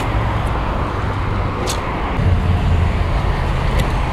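Outdoor urban ambience: a steady rumble of road traffic, swelling slightly a couple of seconds in, with a few faint clicks.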